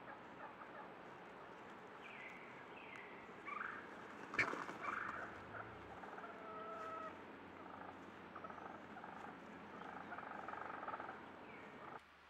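Birds calling in woodland where wild turkey toms are strutting: several short falling and rising calls, and a sharp click about four seconds in that is the loudest sound.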